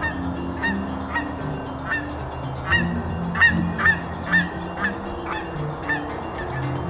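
Geese honking: a string of short, separate honks, loudest in the middle, over quiet background music.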